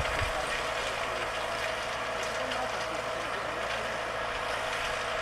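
Farm tractor engine running steadily under load while plowing: an even drone with a held mid-pitched tone.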